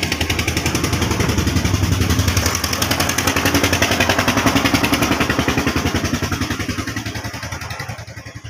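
A machine running steadily with a fast, even pulse, like a small engine, getting quieter near the end.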